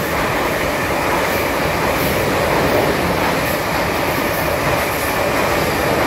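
A South Western Railway passenger train passing close by a station platform: a loud, steady rumble and rush of wheels on rail.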